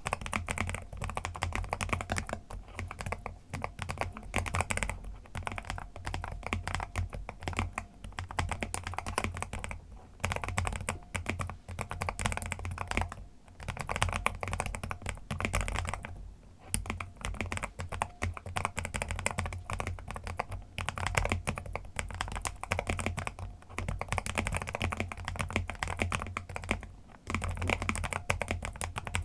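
Typing on a Lofree Flow2 low-profile mechanical keyboard with PULSE switches: a fast, steady run of key clacks, with brief pauses a few times.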